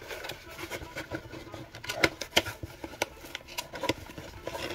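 Crumpled brown kraft packing paper crinkling and rustling in a cardboard shipping box as it is handled, with a few sharper crackles about two seconds in.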